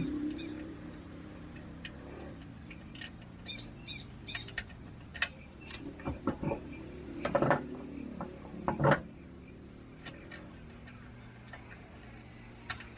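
Spare wheel and tyre being lifted and fitted onto the tailgate carrier of a Maruti Gypsy: scattered knocks and scrapes, with two louder clunks a little past the middle. Birds chirp in the background.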